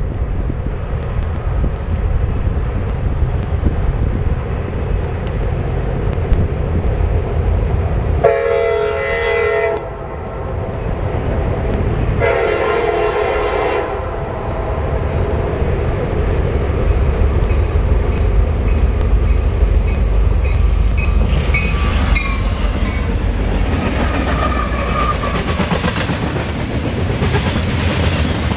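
CSX freight train led by diesel locomotives, the lead one an SD60I, approaching and passing: a steady low engine rumble, two long blasts of the locomotive's air horn about eight and twelve seconds in, then loaded covered hopper cars rolling by with the wheels clacking over the rail joints and some high squealing.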